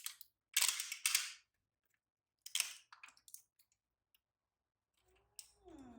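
Short crackling bursts, like rustling or crunching, at about half a second, about a second later and at about two and a half seconds, then a brief call that falls in pitch just before the end.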